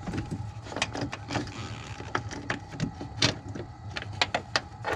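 Irregular clicks and small knocks of hard plastic as hands handle the front turn-signal bulb socket and rub against the headlight housing and surrounding trim, over a faint steady hum.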